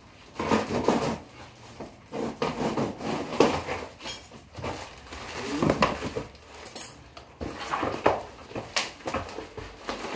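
Cardboard shipping box being torn open by hand: ripping and crackling of cardboard and packing tape in irregular bursts, with sharp snaps.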